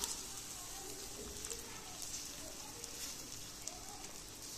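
Chickpea-flour batter sizzling in a hot frying pan as it is spread out with a ladle: a steady, soft crackling hiss.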